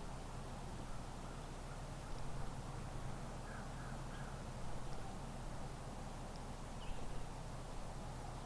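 Faint outdoor ambience with a low steady hum and a few short bird calls about three and a half seconds in.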